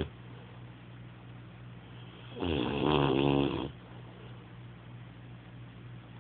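Snoring: one loud snore starts about two and a half seconds in and lasts just over a second, with quiet breathing before and after it.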